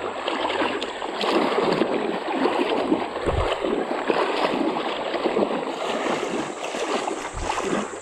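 Continuous water sloshing and splashing as legs push steadily through thigh-deep floodwater while wading.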